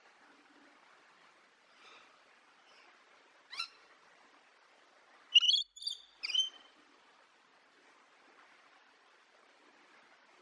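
Rainbow lorikeet giving short, high calls: a faint one and then a single sharp one in the first few seconds, then a loud cluster of three calls around the middle, over a faint steady hiss.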